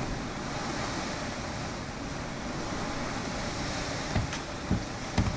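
Hurricane wind blowing steadily, a constant rushing hiss, buffeting the microphone with several low thumps in gusts near the end.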